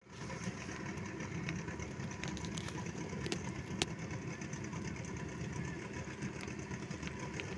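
A boat's outboard motor idling steadily, with a few faint sharp clicks over it.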